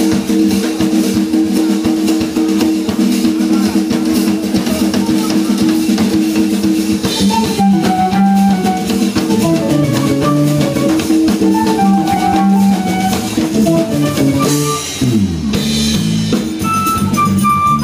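Live Brazilian jazz quintet playing a baião: drum kit and percussion over electric bass and held keyboard chords, with a higher melody line coming in about seven seconds in.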